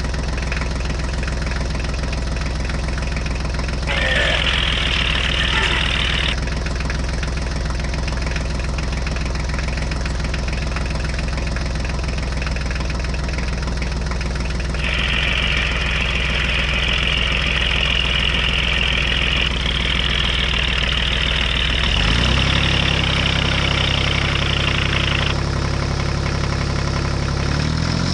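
Tractor engine running steadily at idle, its note shifting about twenty-two seconds in and again near the end, with stretches of hissing on top.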